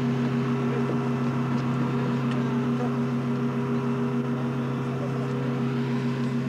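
Aircraft on the apron running with a steady, unchanging droning hum, a few fixed low tones over a light hiss, with faint scattered clicks of people moving about.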